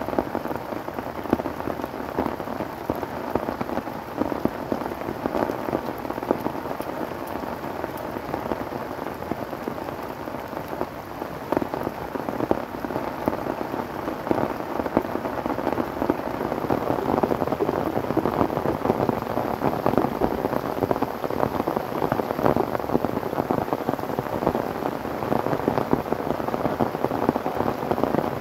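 Heavy tropical rain falling steadily, with a dense patter of drops striking a plastic tarp shelter and the surrounding foliage. It grows a little heavier about halfway through.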